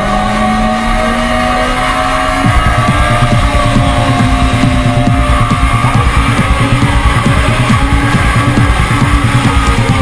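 Rock music with a driving drum beat kicking in about two and a half seconds in. Under it, a sport motorcycle's engine rises slowly in pitch as the bike accelerates.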